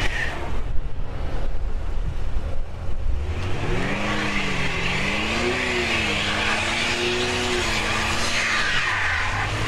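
Chevrolet Impala's engine revving with its front wheels spinning on snow. After a low rumble, a rising, wavering engine note comes in about four seconds in and holds for several seconds before dropping near the end, over the hiss of tyres churning slush.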